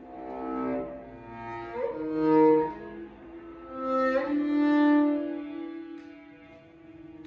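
Viola and cello playing an improvised duet of long bowed notes. The notes swell and fade, loudest about two and a half and five seconds in.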